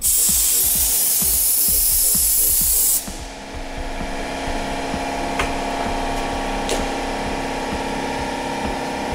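Loud spraying hiss for about three seconds that cuts off suddenly, followed by a steady hum with two sharp clicks.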